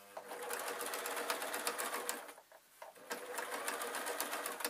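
Electric Singer domestic sewing machine stitching through layered quilt fabric: motor hum under rapid needle clicks, in two runs with a short stop about halfway.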